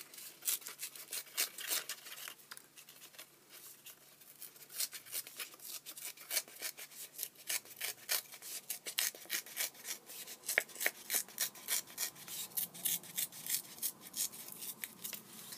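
Light blue cardstock being torn by hand in many small tears along a strip, a long run of short, crisp ripping crackles.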